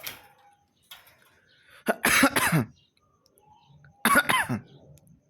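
Two short coughs, about two seconds apart, made as cough sounds for a Javan myna (jalak kebo) to learn to imitate.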